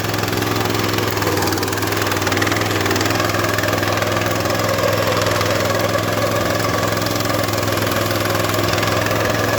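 Salyut-100 walk-behind tractor's single-cylinder petrol engine running steadily while it drives a rotary disc mower; it gets a little louder in the first second.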